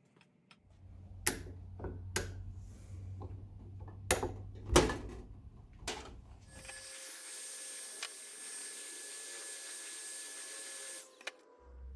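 A few sharp metal knocks and clicks as a bearing is set into a Ducati 900SS cylinder head, over a low hum. After that a powered tool runs with a steady hiss and a thin high whine for about four and a half seconds, then cuts off sharply.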